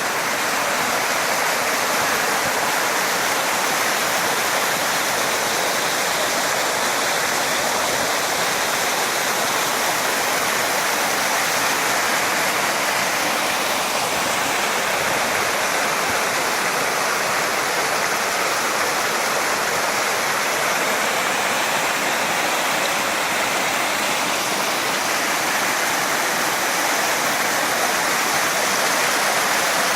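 Running water rushing steadily, an even, unbroken noise like a stream or small waterfall.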